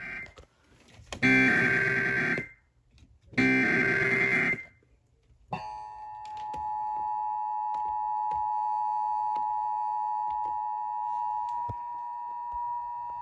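Emergency Alert System header: the end of one SAME data burst and two more buzzy digital data bursts, each about a second long with short gaps between. After them comes the EAS attention signal, a steady two-tone beep of 853 and 960 Hz, which starts about five and a half seconds in and holds for about eight seconds. Together they signal the start of a broadcast emergency alert.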